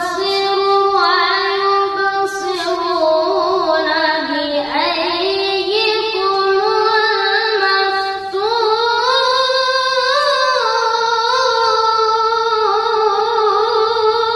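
A boy's voice reciting the Quran in melodic tilawah style: one voice holding long, wavering notes with fine ornaments and gliding between pitches, taking a brief breath about eight seconds in and then carrying on at a higher pitch.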